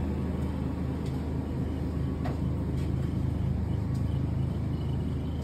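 Steady low mechanical hum, with a few faint clicks about halfway through.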